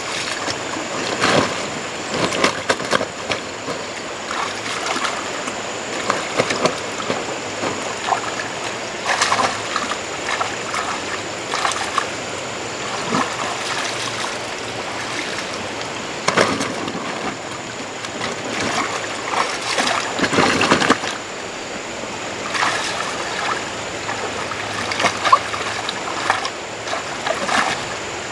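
Water splashing and sloshing in irregular bursts, with trickling between them.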